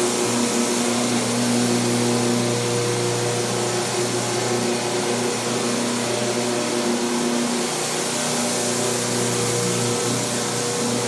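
Single-disc rotary floor scrubber running steadily as its pad scrubs wet tile: a constant motor hum under an even hiss.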